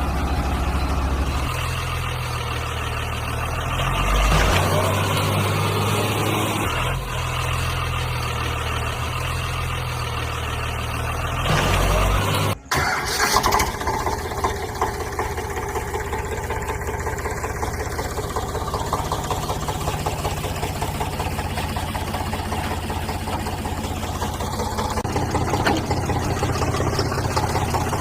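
Heavy vehicle engines running steadily, with the engine note shifting abruptly several times and a sudden brief cut about twelve seconds in.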